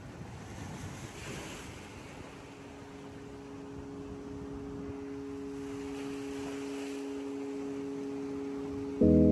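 Surf washing onto a beach, the wash swelling twice. A held low note fades in about two seconds in, and loud music starts just before the end.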